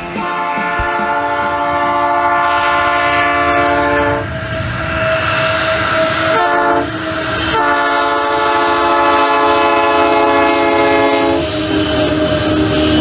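Diesel freight locomotive sounding its multi-note air horn for a level crossing: a long blast, a short one, then another long one, over the rumble of the train.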